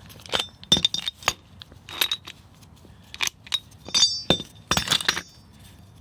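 Worn Toyota Tacoma wheel bearing worked by hand, giving irregular metallic clicks and clinks with a brief ring: the rough, noisy bearing is bad.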